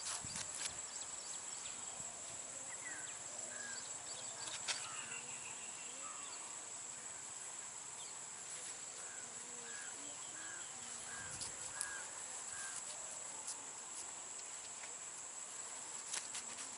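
Steady high-pitched insect drone, like crickets, with a run of five short chirping calls near the middle and scattered sharp clicks.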